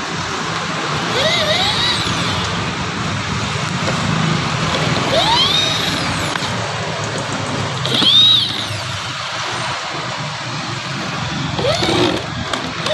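Electric drill-driver backing screws out of a wooden sofa frame: the motor whine rises and falls in short runs, about four times.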